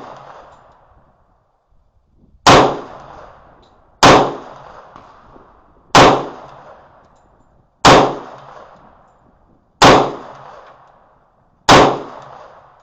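Six single shots from a 10mm Magnum Research 1911 G10 pistol, fired slowly about two seconds apart. Each is a sharp report followed by a short fading echo.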